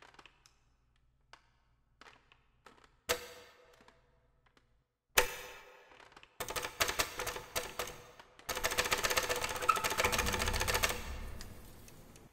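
Cartoon sound effects of a button-operated robot: a few faint clicks, then two sharp clunks about two seconds apart, each with a brief ringing tone. A fast mechanical rattle follows, gets louder partway through and fades near the end.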